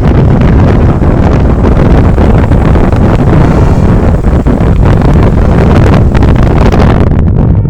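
Loud, steady rumble of a bus on the road, with wind buffeting the microphone; no horn melody is heard.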